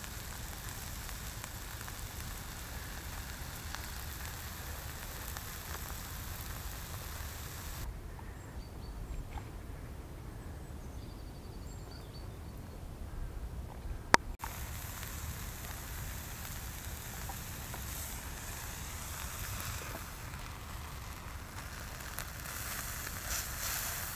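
Lamb steaks and leek slices sizzling on the hot plate of a small wood-burning hobo stove: a steady hiss over a low rumble. The hiss drops away for several seconds in the middle, a single sharp click comes about 14 seconds in, and the sizzling returns.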